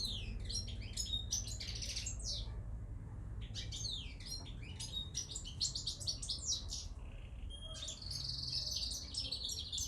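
Small birds chirping busily, many quick high calls and short trills overlapping, with a brief lull about three seconds in, over a low steady hum.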